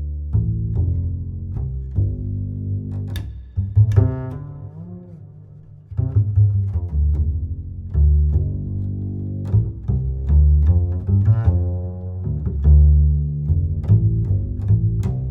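Background music with a deep, plucked bass line and low string notes; it fades briefly about a third of the way through, then picks up again.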